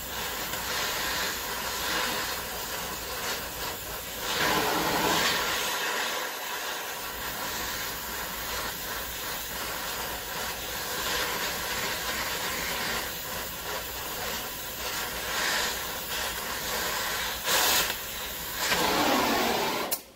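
Gas torch flame hissing steadily as it heats a rusted, seized torsion bar key to free it. The hiss cuts off abruptly near the end as the torch is shut off.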